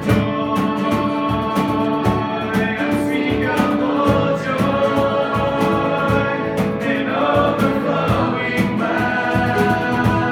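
Worship song: several voices singing over guitar, with a steady beat.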